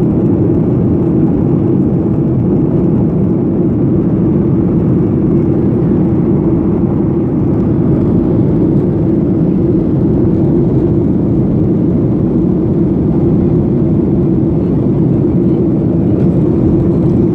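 Airliner engines running steadily at climb power, heard from inside the passenger cabin as a loud, even drone with a strong low hum.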